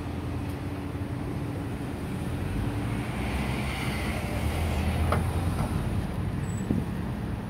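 Steady low engine rumble with a hum, swelling slightly around the middle, and one short click about five seconds in.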